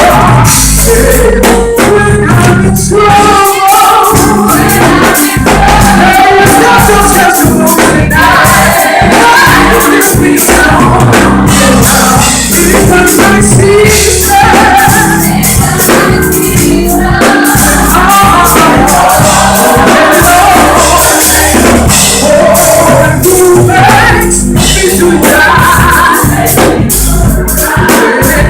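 Live gospel choir singing with a band, with tambourine, drums and bass keeping a steady beat.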